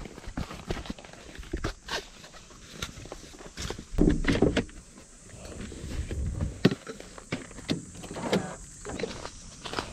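A folding steel mesh camp table being handled: taken out of its carry case and its legs unfolded, with irregular clicks, knocks and rustling. There is a louder cluster of thuds about four seconds in.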